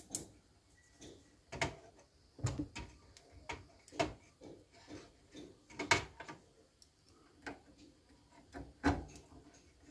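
Irregular light clicks and knocks from hands handling a screwdriver and a small circuit board against a player's plastic and metal chassis, roughly one every half second to a second, with a few sharper knocks.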